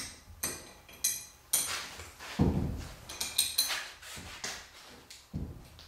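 Metal hand tools clinking and clicking against a Yamaha YZ250 engine as a socket wrench is fitted to the cylinder bolts, with two dull knocks, one midway and one near the end.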